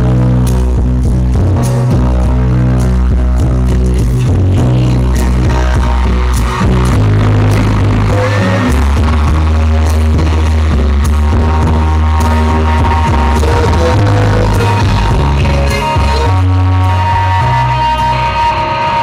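Live rock band playing loudly, electric guitars over heavy bass, recorded so close to the stage that the sound is distorted. A held high note comes in during the second half.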